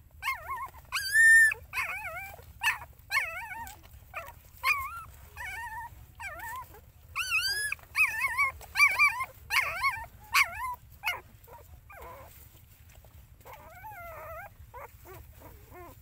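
Young puppies whining and squealing as they nurse: a busy run of short, high cries that rise and fall in pitch, the loudest about a second in, thinning after about eleven seconds to a few faint whimpers.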